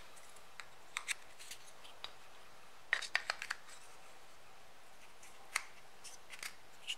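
Faint, scattered light clicks and taps of small hard parts being handled, a quick run of them about three seconds in: a mini katana being fitted into its small plastic display stand.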